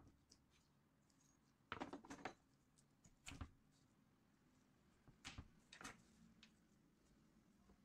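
Faint, scattered clicks and light rattles of walnut kernels and shell pieces being handled in a ceramic dish: a short cluster about two seconds in, then single clicks a little later and twice more near the end.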